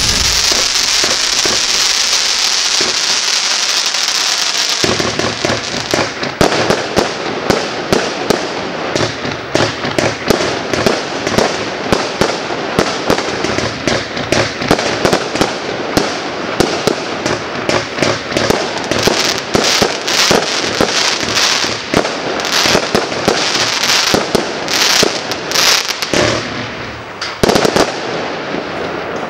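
Klasek Air Show 49-shot, 20 mm fan cake firing. For the first five seconds or so there is a steady hissing rush from rising comet tails. After that comes a rapid, continuous run of shots and bursts, with one especially loud bang near the end before it tails off.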